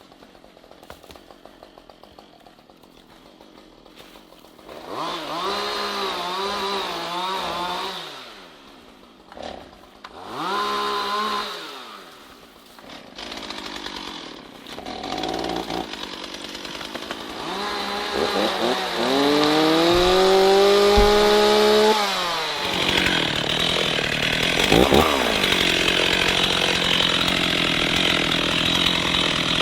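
A chainsaw idles quietly, then is revved up and let back down in several short bursts. It climbs to full throttle about two-thirds of the way in and holds there, loud and steady, cutting into wood to the end.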